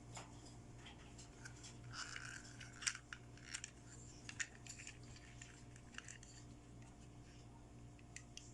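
Faint, scattered clicks and light rustling of small toy pieces being handled and unpacked, busiest in the middle, over a steady low hum.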